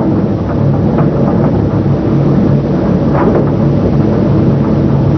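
A truck engine running steadily: a low, even rumble with a hiss over it.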